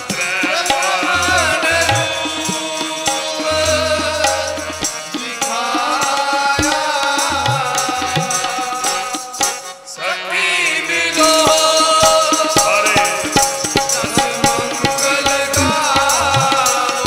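Sikh kirtan: male voices singing a shabad over two harmoniums, with tabla playing a steady rhythm. The music drops briefly about ten seconds in, then comes back louder.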